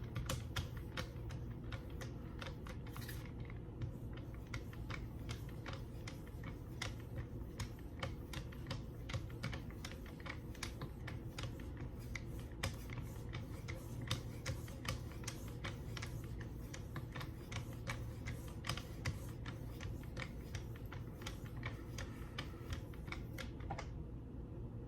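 A D2-steel knife blade being honed on a Wicked Edge guided sharpener: quick, even strokes of the hand-held hones along the edge, a few each second, that stop just before the end.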